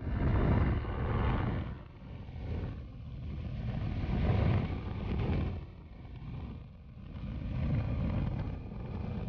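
Light aircraft engine, the Acey Deucy's Continental O-200 air-cooled four-cylinder, running under heavy wind noise on the microphone. The rumble swells and fades every few seconds.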